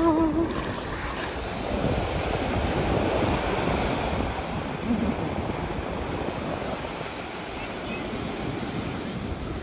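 Small waves washing up and receding on a sandy beach, a steady surf wash, with wind buffeting the microphone. A woman's voice briefly at the very start.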